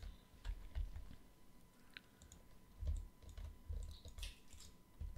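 Faint, scattered clicks and taps of a computer mouse and keyboard, with soft low thumps now and then.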